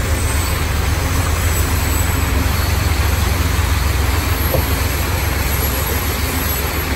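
Passenger train passing close by: a steady, loud, low rumble.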